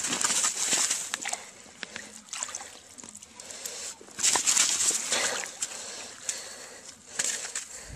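Water splashing and trickling as a wet gill net with fish in it is hauled up out of a hole in the ice, coming in surges, the loudest about four seconds in.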